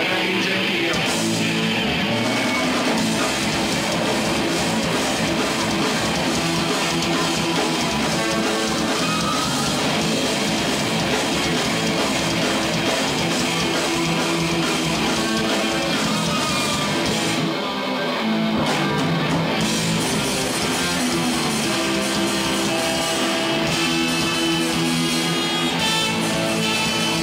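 Ska-core rock band playing live: strummed electric guitars over a drum kit, loud and continuous, with a short break in the drums about two-thirds of the way through before the full band comes back in.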